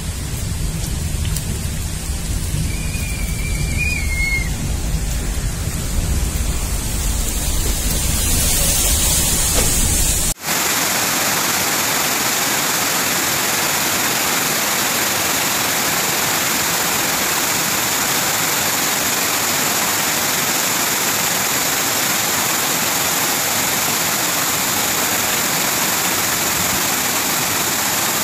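Heavy monsoon rain and water pouring down a rock cutting, a loud steady rush with a deep rumble beneath it and a brief high whistle about three seconds in. About ten seconds in it cuts abruptly to a steadier, brighter rush of water with no rumble.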